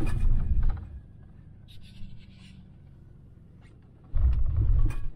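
A Ford Raptor pushing through deep snow, heard from inside the cab: a burst of low rumbling and knocking at the start and another about four seconds in, with a quieter hum of the running truck between.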